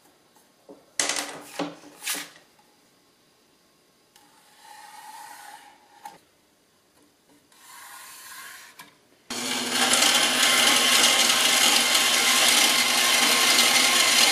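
Marker scratching along a square on copper-clad circuit board, with a few light knocks and scrapes of the square and template. About nine seconds in, a bandsaw cuts through the copper-clad board: a loud, steady rasping noise over the motor's hum.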